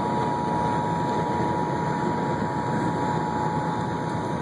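Emergency Alert System attention signal from the van's radio: two steady tones sounding together without a break, announcing a tornado warning broadcast. It plays over the van's road and engine noise.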